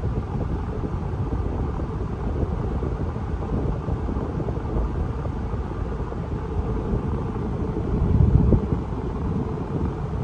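Cabin noise of a Chevrolet Malibu driving at road speed: a steady low road and tyre rumble with some wind, swelling briefly about eight seconds in.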